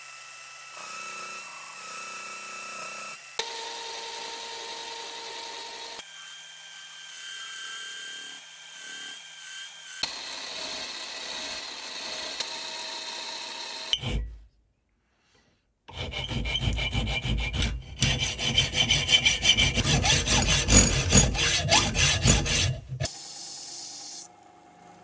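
Metal lathe running with a steady whine while a steel bolt head spins in the chuck and is turned, then hand-filed to a dome. About 16 seconds in, seven seconds of louder, rapid rasping strokes on the metal.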